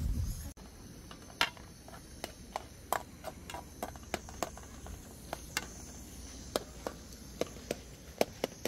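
Irregular sharp clicks and light knocks, a few a second and uneven in strength. In the first half second a low rushing noise stops abruptly.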